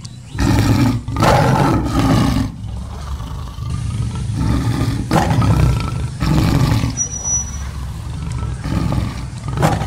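Tiger roars, several long ones one after another, played as a recording.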